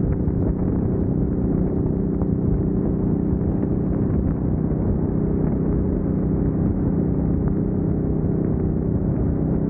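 Kawasaki Vulcan 900 Classic's V-twin engine running steadily at highway cruising speed, under a steady rush of road and wind noise.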